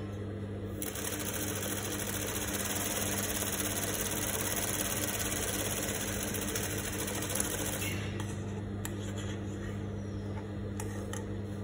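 Juki industrial lockstitch sewing machine running a straight seam for about seven seconds, then stopping, over a steady motor hum. A few light clicks follow near the end.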